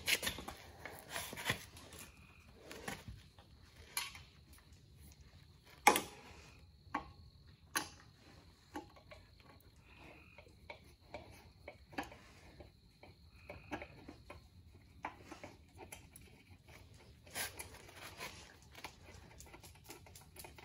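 Scattered small metallic clicks and clinks from a hand tool working the fasteners at the rear brake drum hub of a small Yamaha 50 four-wheeler, with a sharper knock about six seconds in.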